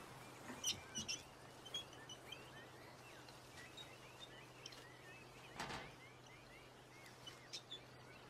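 Faint birds chirping in short repeated calls, over a steady low hum, with a few brief soft noises, the clearest about five and a half seconds in.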